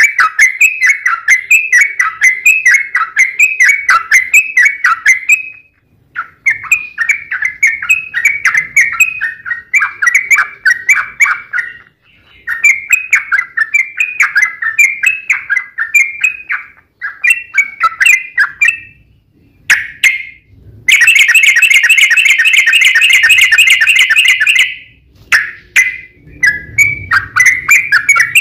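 Yellow-vented bulbul (trucukan) song: quick, bubbly phrases of a few notes a second, broken by short pauses. About three-quarters of the way through comes a fast, unbroken trill lasting about four seconds. This is the vigorous 'gacor' fighting song with a long rapid run, used to provoke other bulbuls into answering.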